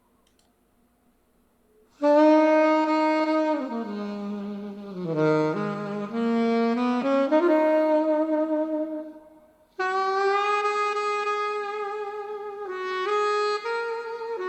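About two seconds of silence, then a solo saxophone plays a slow melody of long held notes with vibrato, reproduced through a portable Bluetooth speaker. The playing breaks off briefly about two thirds of the way in, then resumes.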